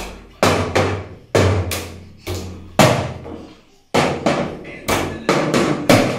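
A small child's toy drum being beaten: about a dozen uneven strikes, roughly two a second, each ringing briefly and dying away.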